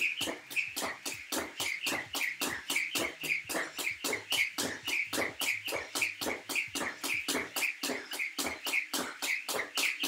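Jump rope double unders: the rope whirring and ticking in a fast, even rhythm of about five strokes a second, with the jumper's feet landing between passes.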